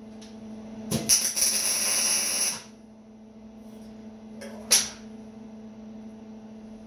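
Hammer knocking a steel frame piece into place: a sharp metallic strike about a second in, then about a second and a half of harsh hissing noise, and a second ringing strike near five seconds, over a steady low hum.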